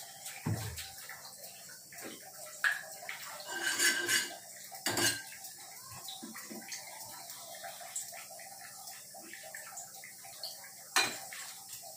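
Clinks and knocks of a steel spoon against a small steel pan and other utensils, scattered through, with a longer clattering rattle about four seconds in.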